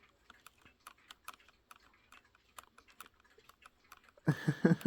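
German cuckoo-clock movement of a Linden wall clock ticking at about four or five ticks a second, with a pivot in the movement badly worn. A short loud voice comes in near the end.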